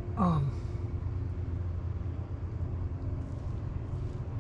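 Steady low background rumble, with a man's short falling "hmm" just after the start.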